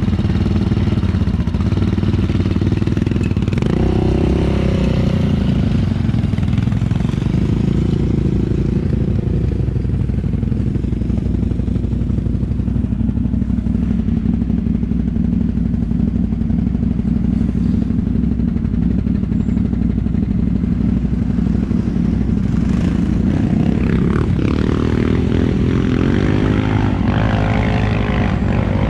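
ATV engine running steadily for the whole stretch, with an engine's pitch wavering up and down a few seconds in and again near the end.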